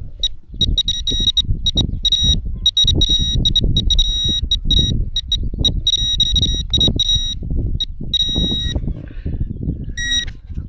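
A handheld metal-detecting pinpointer beeping in one high tone: quick broken pulses run together into longer stretches. This is the sign that it is close to buried metal in the hole. Low rustling and scraping runs underneath.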